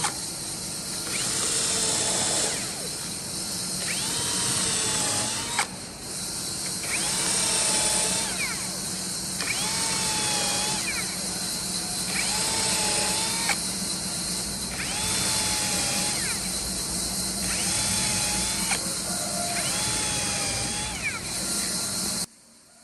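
Electric power tool motor run in about eight short bursts, each spinning up in pitch and then holding; the last one cuts off sharply near the end.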